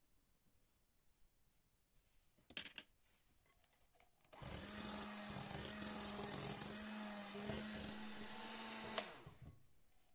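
Electric mixer starting up and running at a steady speed for about five seconds, then switched off abruptly with a click. A short clink comes a couple of seconds before it starts.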